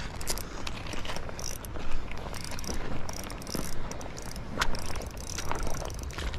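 A 2021 Shimano Vanquish 1000SSSPG spinning reel working in short, repeated bursts as a hooked brown trout is played and brought in.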